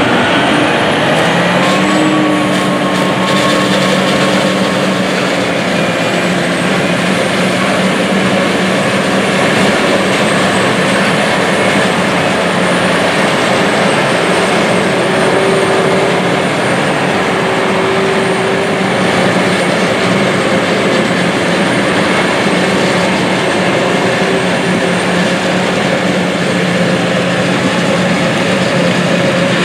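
John Deere 8600 self-propelled forage harvester chopping silage corn: steady, loud engine and cutting noise with a few steady low engine tones and a faint wavering high whine over it.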